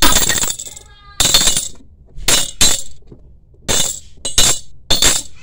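Quarters dropped one at a time into a glass jar, each landing with a sharp metallic clink against the glass and the coins already inside, about seven clinks in all.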